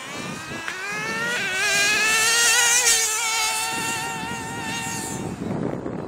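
Nitro RC car's small glow engine at full throttle on a high-speed pass. It makes a high, wavering whine that climbs in pitch over the first second and a half, is loudest about three seconds in, then fades away and dies out a little after five seconds.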